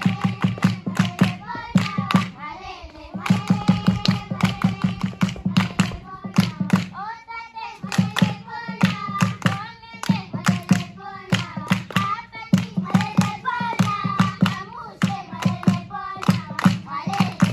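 Singing accompanied by rhythmic hand clapping at a quick, steady beat, with the clapping pausing briefly twice.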